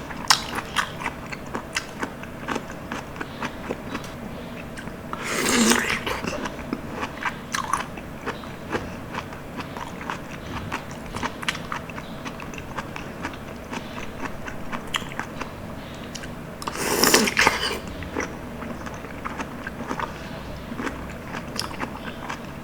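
Close-miked eating of palm fruit (sea coconut) jelly and passion fruit juice: wet, sticky chewing with many small clicks and crunches. Two louder, longer mouth sounds come about five seconds in and again near seventeen seconds.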